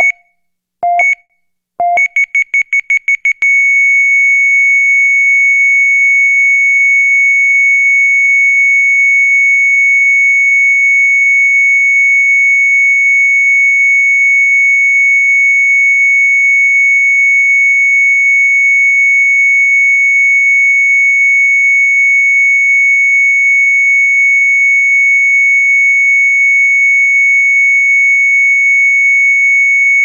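Heart rate monitor beeping about once a second, then a quick run of about eight faster beeps, then going into one long unbroken flatline tone for the rest. The flatline tone is the monitor's signal that no heartbeat is detected.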